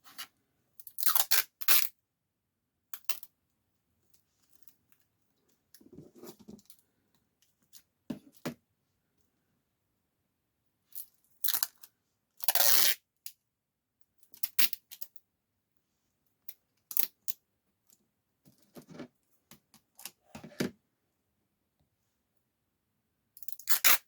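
Sellotape pulled off the roll and torn, in a dozen or so short rips with pauses between, as it is laid over a cracked tablet screen to keep the broken glass together.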